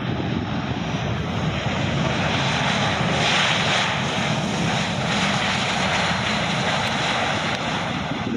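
Boeing 737-800's CFM56-7B jet engines running loud as the airliner rolls down the runway after landing. The noise swells to a peak about three seconds in and then holds steady.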